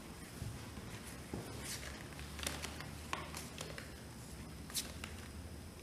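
A few faint, scattered clicks and light rustles of playing cards being handled on a tabletop, over a low steady room hum.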